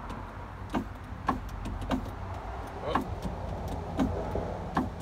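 Mercedes ML320 (W163) power window motor running on a newly fitted regulator: a steady whir with sharp clicks every half second to a second. The motor's gear may not be properly lined up with the regulator's gear teeth.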